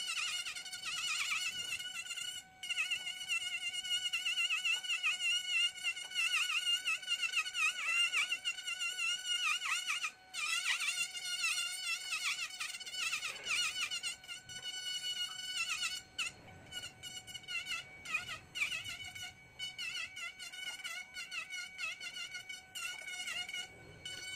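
High-speed handheld rotary carving tool grinding wood with a burr: a high-pitched whine that wavers in pitch as the bit bites and eases off, dropping out briefly a few times.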